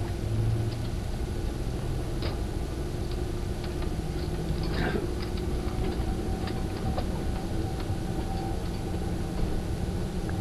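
Moving passenger train heard from inside the carriage: a steady low rumble of wheels on the track, a faint steady hum, and scattered light clicks and rattles.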